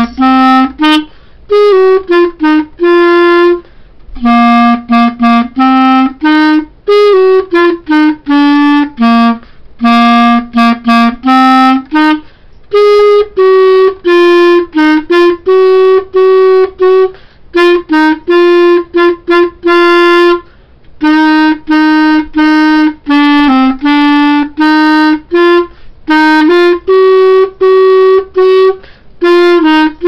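Solo clarinet playing a simple melody in separate, tongued notes, phrase after phrase with short breath pauses between them.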